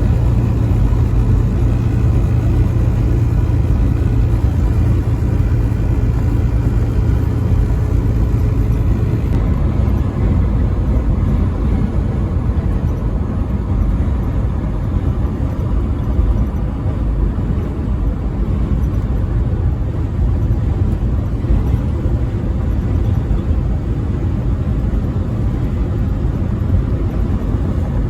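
Semi truck driving on the highway: a loud, steady low rumble of engine and tyre noise. A steady engine tone is heard for about the first nine seconds, then fades into the road rumble.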